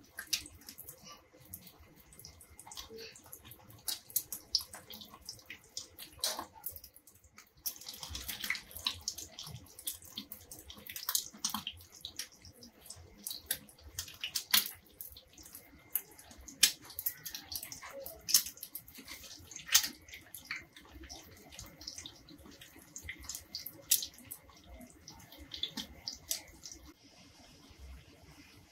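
Egg-coated shami kabab patties shallow-frying in oil on a tawa: a steady sizzle with frequent sharp crackles and pops from the spitting oil.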